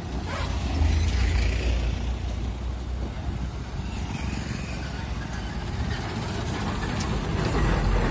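Road traffic passing close: a small pickup truck goes by about a second in, then a heavy multi-axle Tata lorry's diesel engine and tyres grow steadily louder as it approaches and passes near the end, over a constant low rumble.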